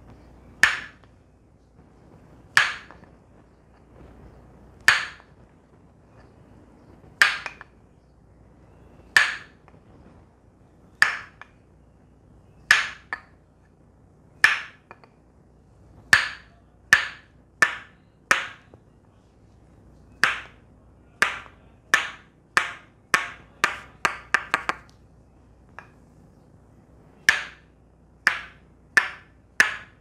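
Tok Sen massage: a wooden mallet striking a wooden peg held against a person's back, giving sharp wooden knocks. Single knocks come about two seconds apart at first, then faster after about halfway, with a quick run of rapid taps about three-quarters of the way in, then steady knocks again near the end.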